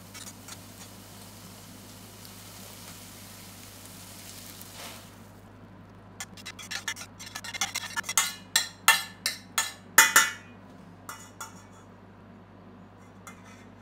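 A metal spoon scraping and clinking against a stainless steel (not non-stick) frying pan as caramelized onions are stirred and pushed around: a quick run of sharp scrapes and knocks from about halfway in, with a few fainter ones near the end. Before that, the onions sizzle softly in the pan.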